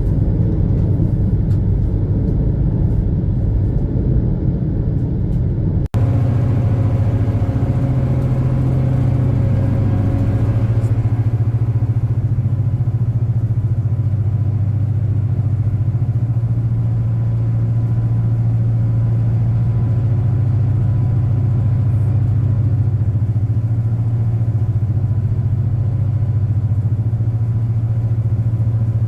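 High-speed passenger ferry's engines running, a steady low drone heard inside the passenger cabin. It breaks off abruptly for an instant about six seconds in and resumes as a smoother hum.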